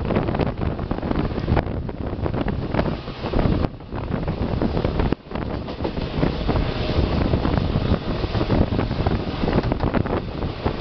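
Passenger train running at speed, the rumble of its wheels and carriages mixed with heavy wind buffeting the microphone. The noise dips briefly twice, a little under 4 and about 5 seconds in.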